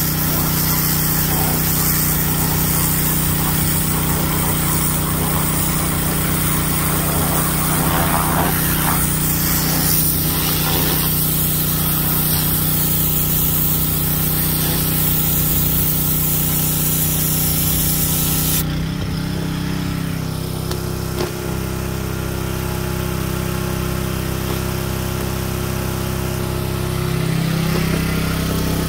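Gas pressure washer engine running steadily under load, with the hiss of the high-pressure spray on concrete. About two-thirds through, the spray hiss stops and the engine note changes; near the end the engine note rises again.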